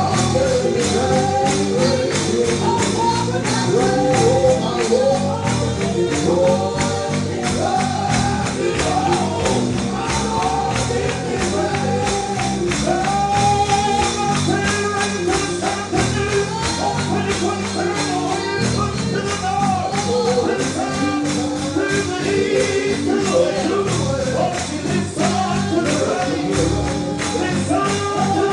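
Gospel music: a voice singing a melody over a steady tambourine beat and sustained low accompaniment.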